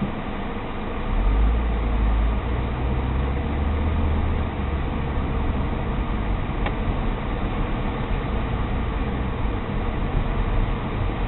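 Car driving, heard from inside the cabin through a dashboard camera: steady engine and road rumble. The low rumble grows louder about a second in and eases again around four and a half seconds, with one faint tick later on.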